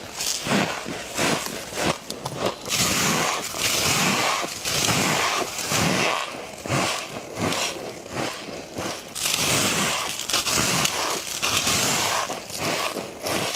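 Close-miked biting and chewing of frosty, powdery ice: dense crackly crunching, with quick runs of crisp crunches and longer stretches of steady crunch.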